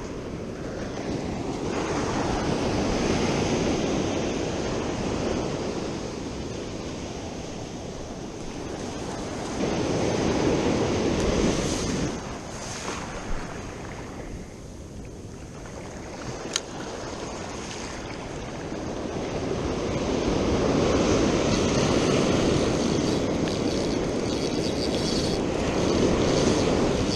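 Ocean surf breaking and washing up the beach, a rushing noise that swells and fades in three long surges. Two short sharp clicks come midway.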